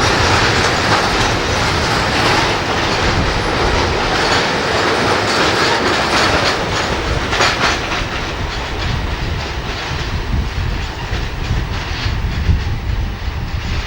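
Freight train wagons rolling past, wheels clacking over rail joints in a steady run of clatter that grows quieter near the end as the train draws away.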